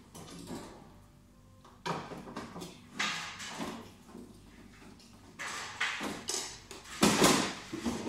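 Irregular scraping and clattering handling noises as a long screwdriver is worked at the casing of a Soprano laser machine. The loudest comes about seven seconds in.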